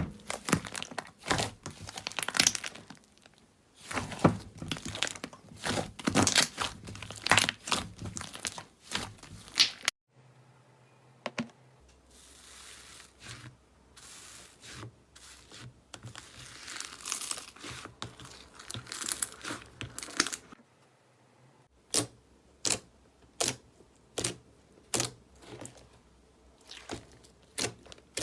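Slime being squeezed and stretched by hand, with dense crackling and popping. About ten seconds in the sound cuts off sharply and turns to a softer crinkling. Near the end there are evenly spaced sharp pops, about one to two a second.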